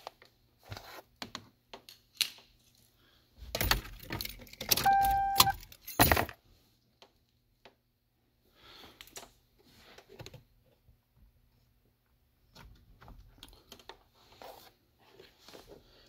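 Keys jangling, with small clicks and rattles of hand handling, loudest and busiest from about three and a half to six seconds in. A short steady beep sounds in the middle of that busy stretch.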